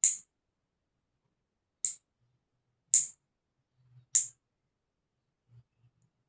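Nail clippers snipping through long, month-old nails: four sharp clicks about a second apart, with faint handling knocks between them.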